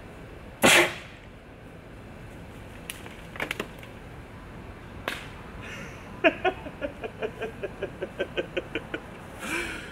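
A homemade PVC compressed-air cannon fires once about a second in: a short, sharp blast of released air launching a burrito. Near the end comes a quick run of ticks, about four a second.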